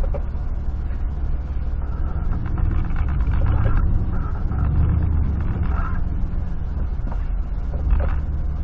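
Steady low engine and road rumble inside the cab of a 1996 GMC V8 pickup driving slowly. A few brief higher-pitched sounds come over it in the middle and a short sharper one near the end.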